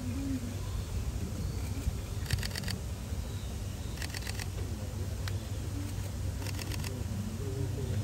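Camera shutter firing in rapid continuous-shooting bursts: three bursts of about five quick clicks each, roughly two seconds apart, with one single click between. Under them a steady low hum and faint background voices.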